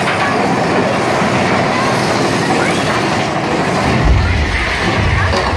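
Mine-train roller coaster cars running along the track through a tunnel: a steady, loud rattle of wheels on rails. A deep rumble joins about four seconds in.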